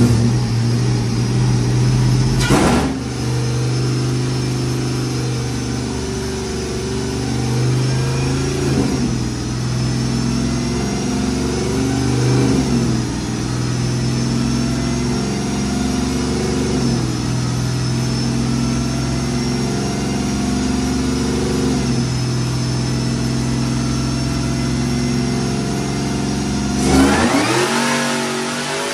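Supercharged LT4 V8 in an OBS Chevy pickup running under load on a chassis dyno, holding fairly steady revs with small steps, a high whine slowly climbing in pitch. About 27 s in it surges sharply, then the revs fall away.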